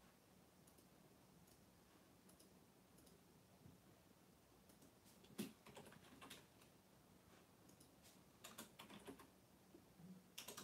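A quiet room with scattered light clicks and taps: a sharper click about five seconds in, then a quick run of clicks near the end.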